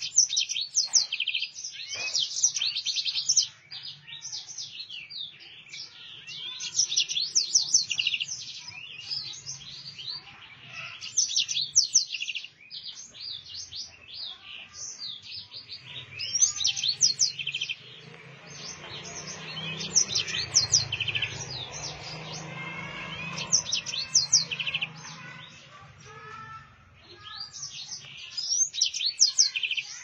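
Yellow-fronted canary (Mozambique finch) in full song, singing repeated bursts of rapid high chirps and rolling trills, each burst a second or two long with short pauses between. A low background rumble rises under the song from about the middle and fades again.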